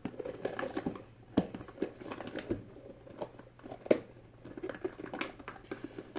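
Small plastic fidget toys being rummaged through and handled, giving a run of irregular clicks and clacks.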